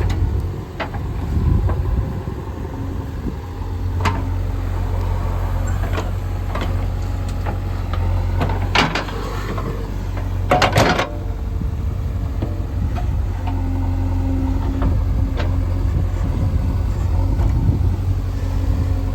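Diesel engine of a JCB 3DX backhoe loader running steadily, with scattered sharp clanks and knocks from the working machine. The loudest are a cluster of knocks about nine seconds in and again near eleven seconds.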